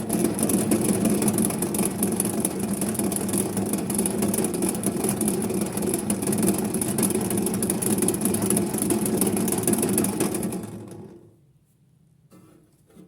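Small electric motor of a vintage toy Hoovermatic twin tub washing machine spinning its spin dryer with a steady whir, then switched off about eleven seconds in and running down quickly. A brief faint knock comes near the end.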